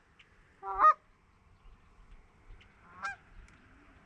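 Goose honks: one loud honk about a second in and a fainter one near the end.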